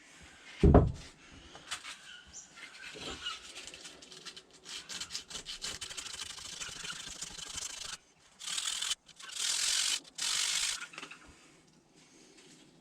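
A single heavy knock about a second in, then rough scraping and rasping on wood, ending in three longer, louder strokes: the new spotted gum handle being shaped down to fit the splitting maul's eye.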